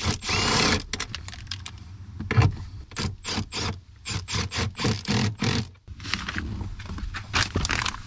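Handling noise from a power cable being worked along the door sill trim and footwell carpet: irregular clicks, rustles and scrapes, with a quick run of clicks in the middle.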